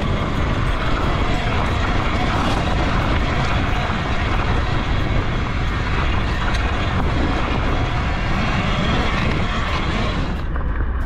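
Wind rushing and buffeting over the microphone while riding an electric dirt bike over desert dirt, with tyre noise and small ticks of grit. The high hiss drops away suddenly about ten seconds in.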